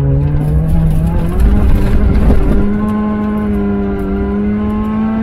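A race car's engine heard from inside the cabin under hard driving. Its revs climb for the first second and a half, break briefly about two seconds in, then hold steady and high. A heavy rumble of tyres on loose dirt and gravel runs underneath.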